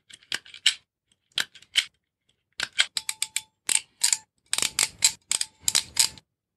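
An automatic wire stripper and pliers clicking and snipping on thin electrical wires, which are being stripped for stepper motor cables. The sound is a series of short, sharp clicks and rasps: a few scattered ones at first, then a quick, dense run from about two and a half seconds in.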